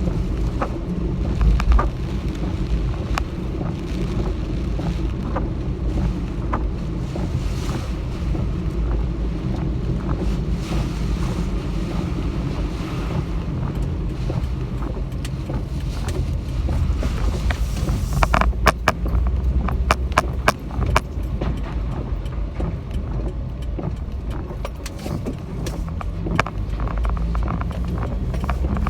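Car driving through typhoon wind and rain, heard inside the cabin: a steady low rumble of road and wind noise. About two-thirds of the way through comes a run of sharp clicks and knocks.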